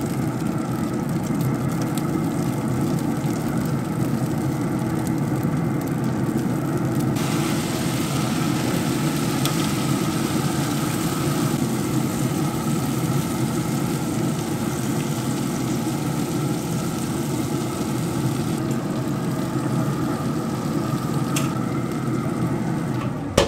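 Steady mechanical running noise at an even pace, strongest in the low range, with a higher hiss joining about seven seconds in.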